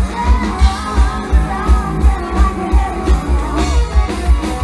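Live rock-country band playing through a loudspeaker system: a singer over electric guitar and a steady bass-drum beat.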